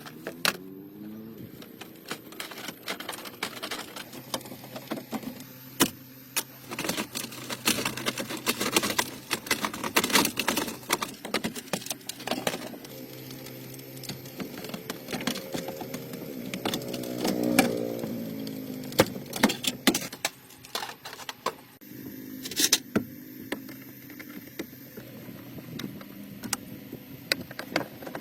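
Metallic clinks and knocks of tools and car parts being handled during hands-on restoration work. A motor whirs up in pitch just after the start, and again around the middle, rising and then falling away.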